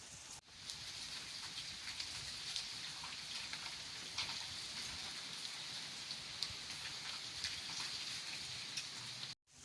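Steady rainfall, with scattered individual drops ticking. The sound cuts out briefly twice: once near the start and again just before the end.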